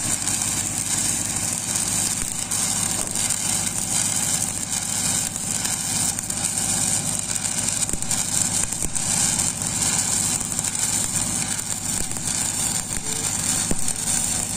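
Stick-welding arc of an E6010 electrode burning steadily through a root pass on a steel pipe joint, a continuous high-pitched crackle and hiss, over the steady running of an engine underneath.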